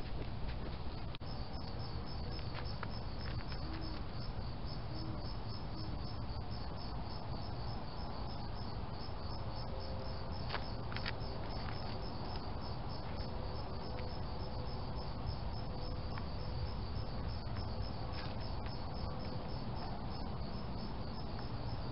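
Evening insects chirping steadily in an even, pulsing rhythm, a few chirps each second, over a steady low background noise.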